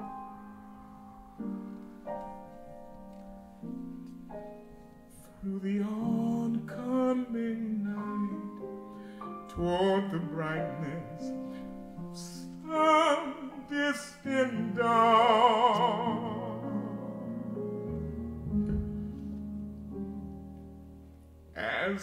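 Live jazz ballad on piano and band: sustained piano chords at first, then busier playing, with a melody line carrying wide vibrato at the loudest point around the middle.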